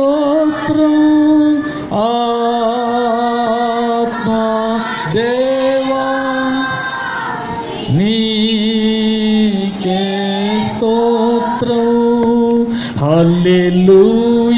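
A man singing a slow devotional worship song into a microphone, holding long notes and sliding from one pitch to the next.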